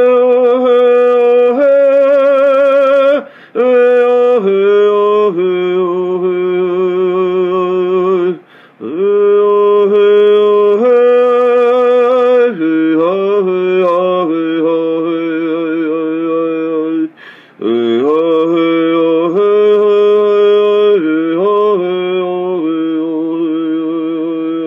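A man singing a Lakota sacred prayer song (olowan) solo and unaccompanied, in long held notes with a wavering vibrato, each phrase stepping down in pitch. He breaks briefly for breath about three, eight and seventeen seconds in.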